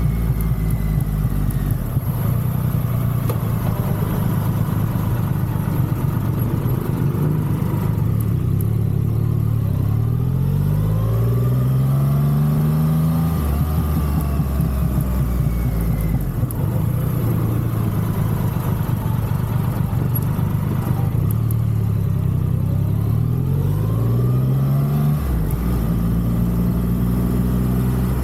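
Triumph Rocket 3's three-cylinder engine running on the move, with a steady note that rises twice as the bike accelerates: once about a third of the way through and again near the end.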